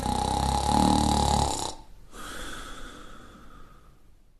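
A person snoring: one loud, rattling in-breath lasting about a second and a half, then a quieter, airy out-breath that fades away.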